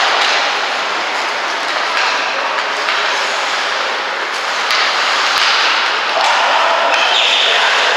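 Ice hockey game on a rink: a steady scraping hiss of play on the ice, with a couple of sharp clicks of stick or puck about halfway through.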